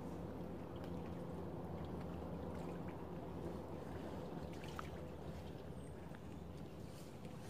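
Distant motorboat engine droning low and steady across the lake, easing slightly toward the end, over water lapping at the shore. A few faint ticks and a short high chirp.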